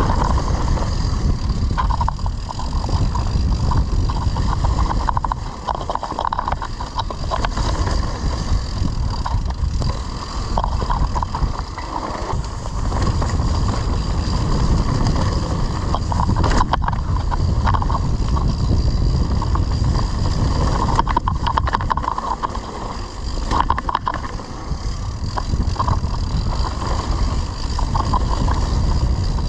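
A mountain bike ridden off-road: a loud, steady rush of wind on the microphone mixed with the rolling and rattling noise of the bike over rough ground.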